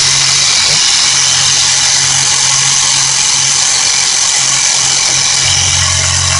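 Portable car tyre-inflator air compressor running steadily, its electric motor and piston pump giving an even hum with a hiss. Although the motor runs, it pumps no air and builds no pressure, which the owner puts down to a worn O-ring.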